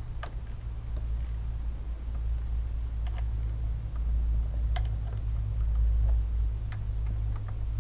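A few sharp, widely spaced clicks from a quarter-inch-drive inch-pound torque wrench as the cam position actuator bolts are tightened to 71 inch-pounds in the aluminum head, over a steady low hum.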